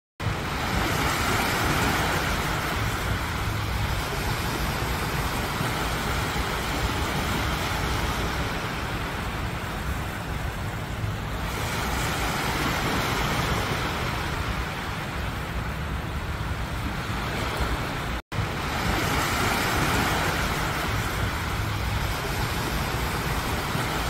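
Small sea waves breaking and washing up onto a sand beach: a steady rushing wash that swells and eases every few seconds as each wave comes in. The sound cuts out for an instant about eighteen seconds in.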